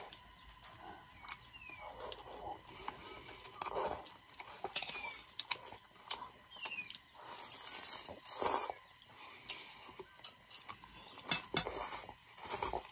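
Cutlery clinking and scraping on a plate at a meal of fried noodles and buffalo dry meat, in scattered sharp clicks with a run of louder ones near the end, and short noisy bursts of eating between them.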